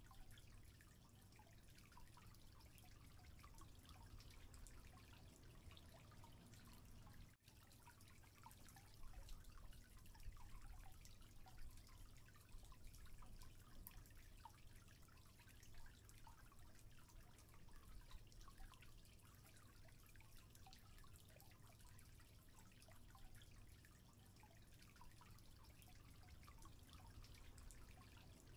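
Faint aquarium water sounds: small drips and trickling over a low steady hum, dropping out briefly about seven seconds in.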